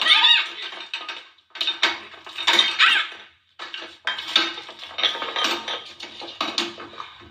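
Clattering and scuffling as two cats fight on a hard floor and knock their food bowls about: a run of sharp knocks and rattles. Short rising-and-falling cries come at the very start and again about two and a half seconds in.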